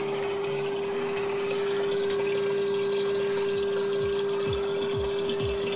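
MGF's in-tank electric fuel pump running off a 12-volt supply, humming at one steady pitch while it pumps fuel out of the tank through a hose, with the fuel running into a can.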